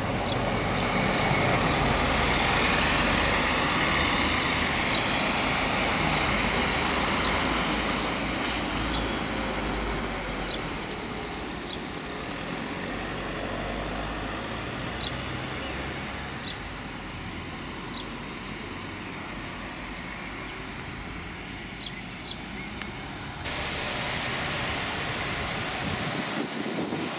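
Articulated city bus driving past close by, its engine and tyres loudest in the first several seconds, then fading into quieter street traffic with short high chirps now and then. Near the end the sound changes abruptly to a steadier rushing noise.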